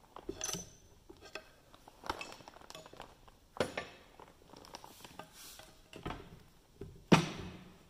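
Steel pry bars knocking and clinking against the cast housing of a John Deere 2010 tractor as it is worked up off its dowels: a string of sharp metal knocks, the loudest near the end.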